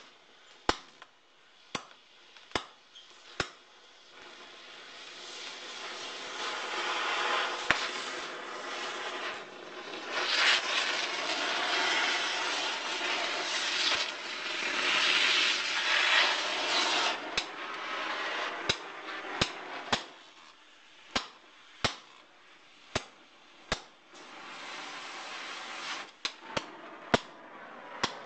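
Computer burning: sharp pops and crackles at irregular intervals over a rushing flame hiss that swells through the middle and again near the end.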